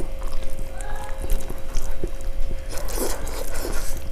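Fingers mixing and scooping soft moong dal khichuri on a stainless steel plate: many small wet clicks and taps, with a steady faint hum underneath.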